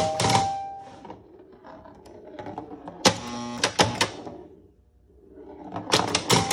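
1976 Chicago Coin Sound Stage pinball machine in play: rapid bursts of mechanical clicking and clacking from its relays, score reels and flippers, with a brief ringing tone near the start. It goes almost quiet for a moment just before the clatter starts up again near the end.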